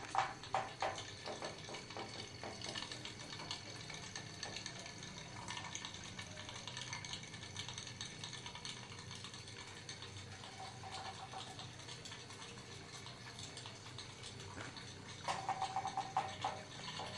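Tin pop-pop toy boat's steam engine popping rapidly, about eight pops a second, loud at the start and again about fifteen seconds in, fading to a faint hiss in between.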